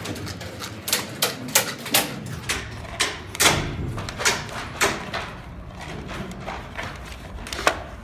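Irregular sharp clacks and knocks, about two a second, thinning out after about five seconds, as a stainless steel wire cable is pulled off its spool and run along the trailer's wooden floor and metal E-track.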